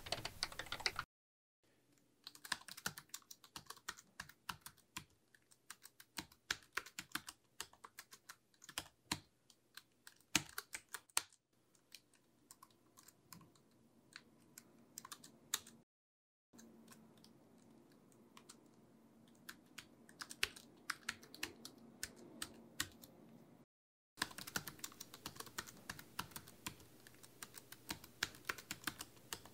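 Typing on a computer keyboard: rapid, irregular key clicks in several stretches, broken by a few short silences.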